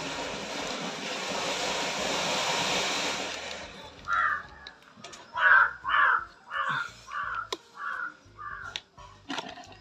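A steady hiss for nearly four seconds, then a bird calling harshly about eight times in quick succession, roughly two calls a second.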